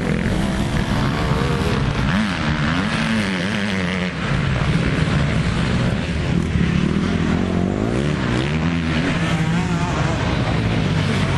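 Motocross dirt bike engines revving on a dirt track, the pitch climbing and dropping again and again as the riders open and close the throttle and shift through the gears, with more than one bike running at once.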